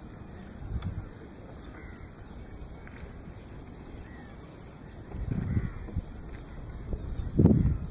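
Crows cawing a few times, over low gusts of wind on the microphone, the loudest gust near the end.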